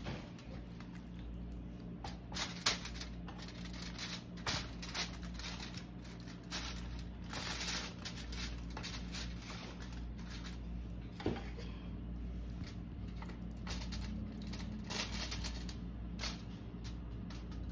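Raw marinated chicken pieces being handled and pressed onto a wire rack lined with aluminium foil: irregular light clicks, taps and crinkly rustles, over a steady low hum.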